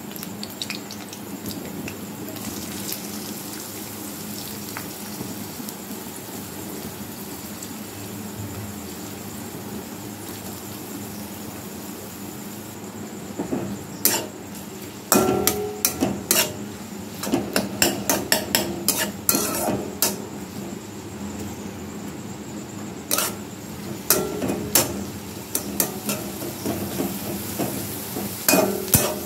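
Garlic and green chilli frying in oil in a metal kadai with a steady low sizzle; from about halfway through, a metal spatula stirs chopped onion, scraping and clanking against the pan in quick runs of strokes while the frying goes on.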